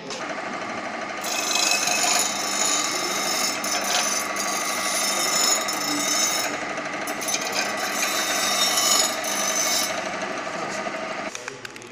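Pedestal bench grinder running, its abrasive wheel grinding a welded steel-rod frame: a steady rasping hiss over the motor's hum, with a couple of short breaks as the work is eased off the wheel. The grinding stops about ten seconds in and the machine sound fades out soon after.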